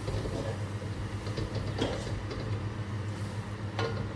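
A spoon stirring gravy in a cooking pan, with a few scrapes and clinks against the pan, over a steady low hum.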